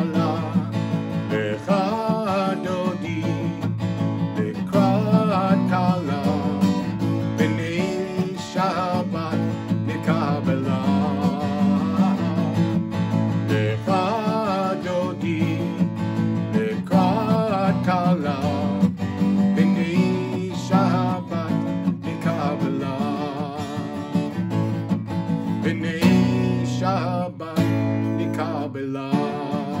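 Acoustic guitar strumming steady chords, with a melody line carried over it.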